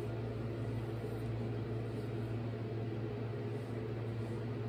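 Steady low hum of a running fan.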